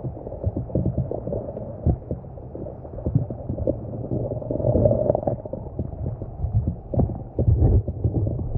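Wind buffeting the microphone: a low rumble with irregular thumps.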